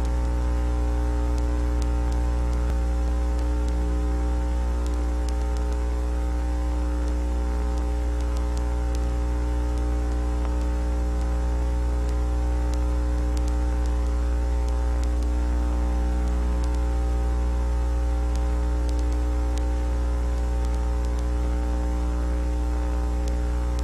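Steady electrical mains hum with a stack of overtones over a light static hiss, unchanging throughout and with no other sound on top.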